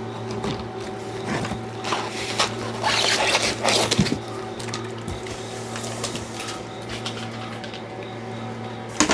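Plastic wrapping crinkling and rustling as plastic-wrapped acrylic panels are handled and lifted out of foam packing, with a knock about four seconds in and sharp clicks near the end. Under it runs a steady low electrical hum.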